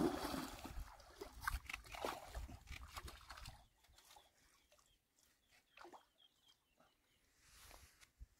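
A hooked rohu splashing and thrashing at the water's surface while being played on a rod: one loud splash right at the start, a few seconds of broken splashing, then it goes almost quiet about three and a half seconds in.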